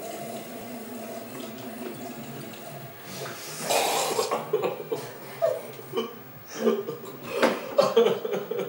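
A person coughing and spluttering in a run of short, irregular bursts, starting about three and a half seconds in after a few seconds of low room murmur.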